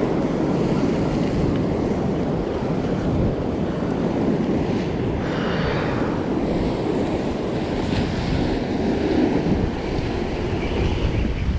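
Wind buffeting the microphone over surf breaking and washing against a rock ledge, a steady rushing noise.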